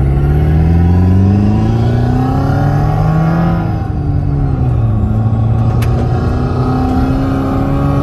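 Simulated motorcycle engine sound from an engine-sound gadget fitted to the car, heard in the cabin, rising in pitch as the car accelerates. It drops at a gear change about four seconds in, then climbs again more slowly.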